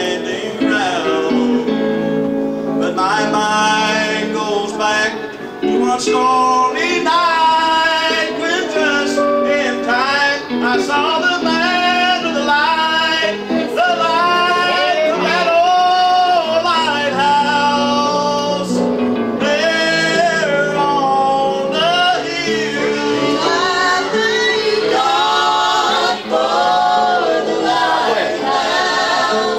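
Gospel singing: a man and a woman singing into microphones, the man's voice leading.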